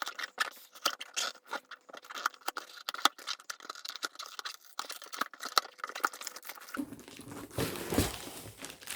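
Cardboard box being opened and unpacked: tearing, crinkling packaging and scattered clicks and rustles. The rustling grows denser and louder near the end.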